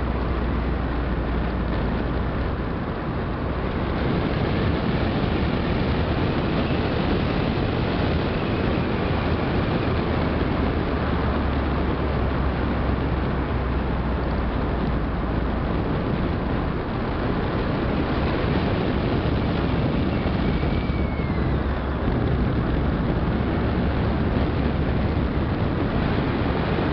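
A car driving on the road, heard from inside the cabin: a steady rumble of engine and tyres.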